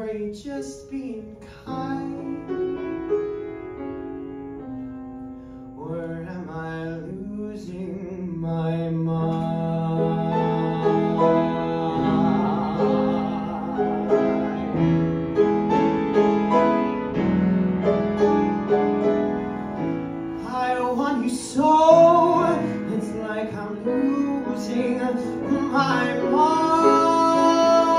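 A man singing into a microphone with piano accompaniment, holding long notes, with a wavering vibrato in the second half as the music swells louder.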